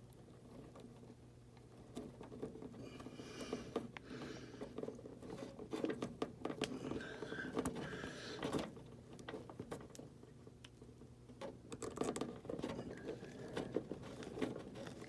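Hands twisting and splicing thin thermostat wires, a float switch lead onto a 24-volt wire: irregular small clicks and rustling, close to the microphone.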